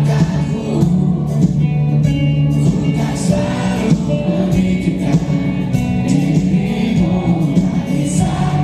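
Live rock band playing through a concert PA: a male voice singing over electric guitar, bass and drums.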